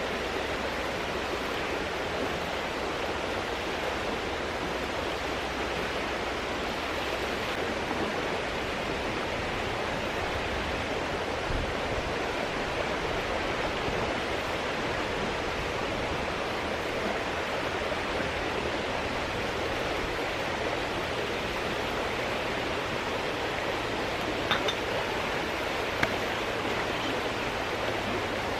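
Mountain stream flowing steadily, with a couple of small clinks near the end.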